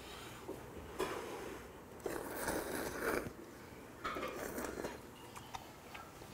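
A man slurping spicy tonkotsu ramen noodles from chopsticks: a few noisy slurps, the longest lasting about a second from about two seconds in.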